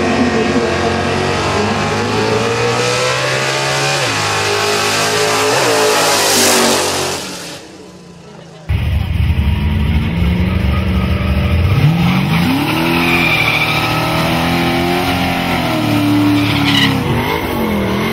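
Racing car engines revving up and down, their pitch repeatedly climbing and dropping, with tyre squeal. The sound fades about seven seconds in, then cuts abruptly to another stretch of engines revving.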